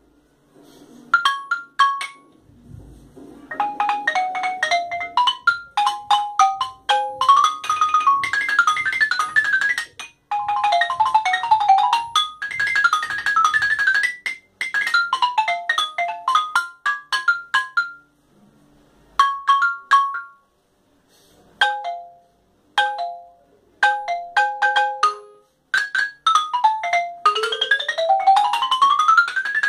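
Yamaha marimba played solo: quick runs and separate struck notes on the wooden bars, broken by short pauses, with a fast rising glissando near the end.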